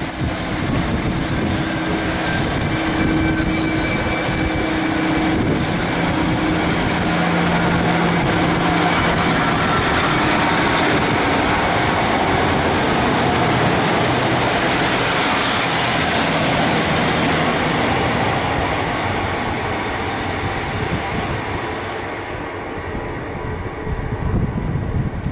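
Two coupled Class 153 diesel railcars pulling away from the platform and passing close by, a steady diesel engine note over the rumble of wheels on rail. The sound fades from about two-thirds of the way through as the train draws away.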